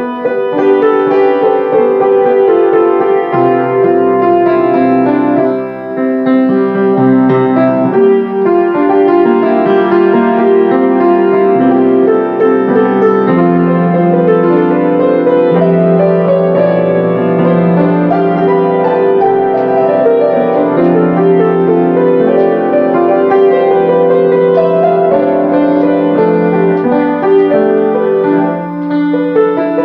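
Solo grand piano playing held chords with a melody line above them, the notes ringing on into one another.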